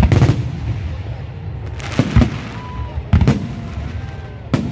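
Aerial firework shells bursting overhead: sharp bangs right at the start, again about two seconds in, just after three seconds and near the end, over a continuous low rumble of further bursts.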